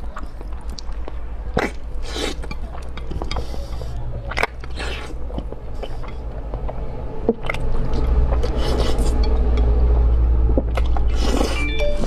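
A person slurping up spicy instant noodles and chewing them, with irregular wet sucking and mouth noises. A steady low hum runs underneath and grows louder about eight seconds in.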